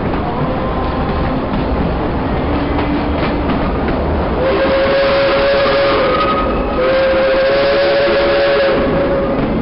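Steam locomotive whistle sounding two long, steady blasts of about two seconds each with a short break between, starting about halfway through, over the steady low running noise of the moving train.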